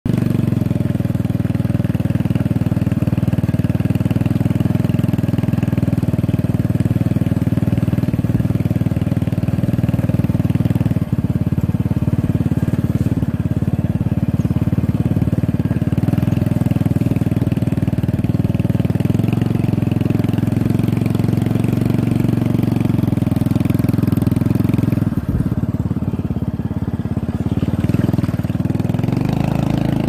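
Small motorcycle engine running steadily as the bike rides along, easing off briefly near the end.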